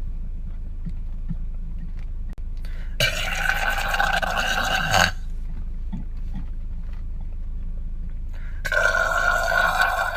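A man's deliberate long burps, weird and otherworldly-sounding: one lasting about two seconds starting about three seconds in, and another starting near the end.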